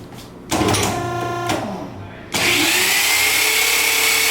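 Two short steady tones about a second apart. Then, about two seconds in, a power drill starts and runs loud and steady with a high whine as it drives an M5.5x55 mm steel self-drilling screw into metal.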